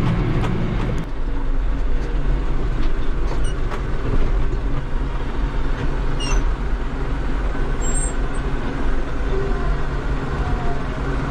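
New Holland TD75 tractor's diesel engine running steadily under way, heard from inside the cab, its low note dropping about a second in. A few faint rattling clicks come through over the engine.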